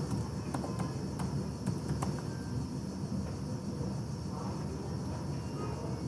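About half a dozen computer keyboard keystrokes in the first two seconds, typing a short terminal command, over a steady low hum and hiss.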